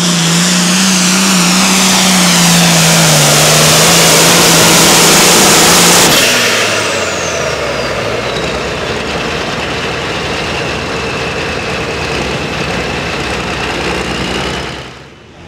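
Modified pulling tractor running flat out under load, its engine cut off abruptly about six seconds in as the pull ends. A high whine then falls slowly in pitch as it winds down, under lower steady running noise.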